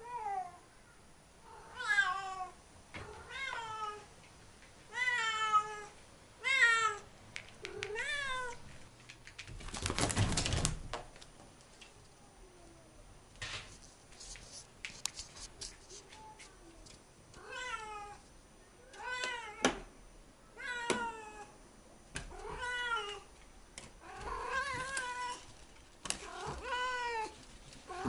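Siamese cat meowing over and over, loud calls that fall in pitch, about one every second or two. A short rustling burst of about a second comes in a pause near the middle.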